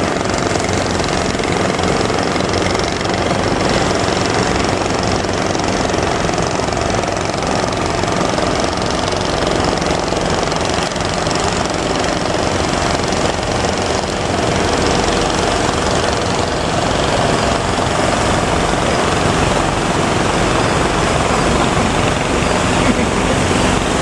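A boat engine running steadily under a constant rush of surf and wind noise.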